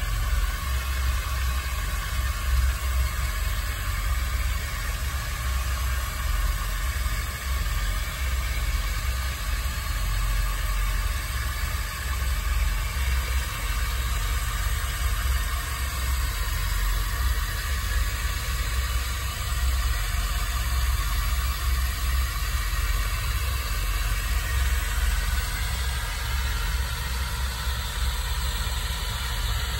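Power drill running steadily, spinning a mixing rod through thick, high-viscosity insulation coating in a plastic pail.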